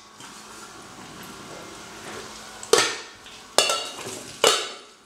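Stainless steel saucepan and its lid clanking together: three sharp metal knocks, each with a short ring, about a second apart in the second half.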